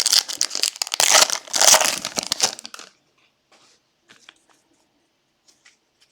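The wrapper of a 2022 Panini Mosaic football card pack crinkling loudly as it is torn open and crumpled, stopping about three seconds in, followed by a few faint clicks of cards being handled.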